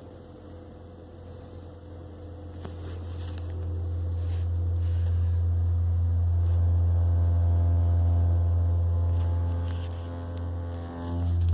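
Low humming from a 2018 Honda Accord Hybrid. It swells over the first few seconds into a steady drone, dips briefly near the end, then comes back.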